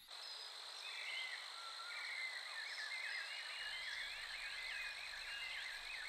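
Nature ambience: a steady high-pitched insect drone with a busy chorus of short chirping calls over it, cutting in abruptly.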